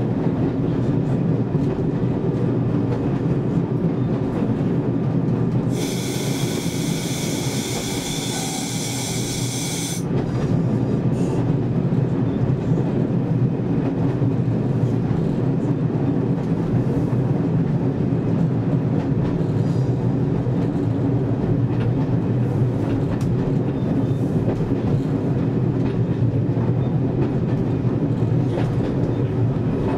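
Class 101 diesel multiple unit running, heard from the driver's cab: a steady drone from its underfloor diesel engines with the wheels running on the rails. About six seconds in, a loud high-pitched hiss with a whistling edge sounds for about four seconds, then stops.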